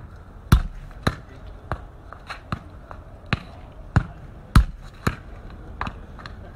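A football juggled and kicked on paving, with a thud about every half second, irregularly spaced; the hardest kicks come about half a second in and about two-thirds of the way through.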